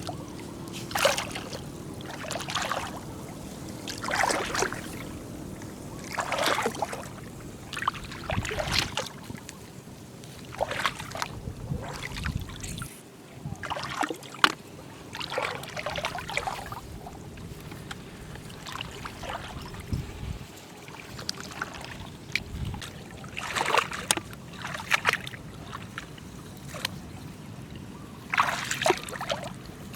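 Shallow flowing water sloshing and splashing in short irregular bursts, one every second or two, as it is disturbed by wading and hand-picking snails.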